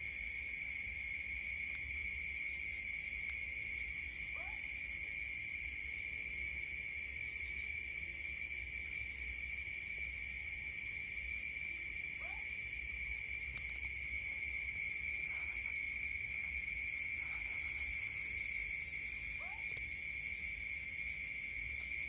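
A short rising call from an unidentified night animal, repeated three times about seven to eight seconds apart, each with a brief quick trill shortly before it. Under it runs a steady, high, continuous night insect chorus.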